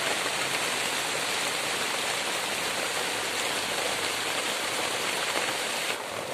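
Heavy rain pouring steadily onto grass and leaf litter, a dense even hiss. Near the end it drops suddenly in level.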